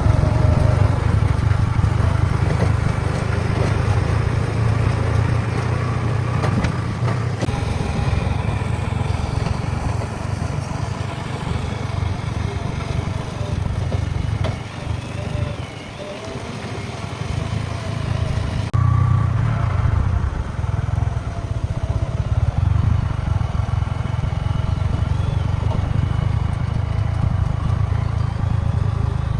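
JCB 3DX backhoe loader's diesel engine running under working load. It drops off briefly about halfway through, then picks back up sharply a few seconds later.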